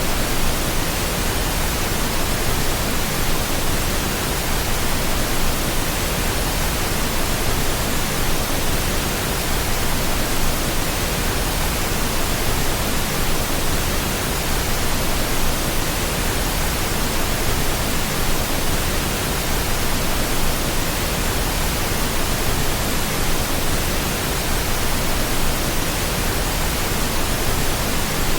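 Steady pink noise: an even, unchanging hiss-like rush spread across all pitches.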